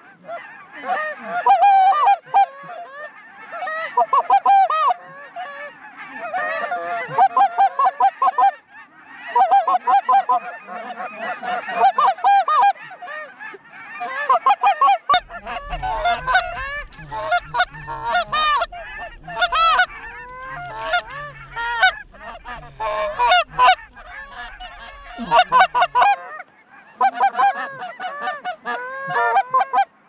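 Geese honking and cackling, many calls overlapping in a steady din. A low rumble sits under the calls from about halfway through until near the end.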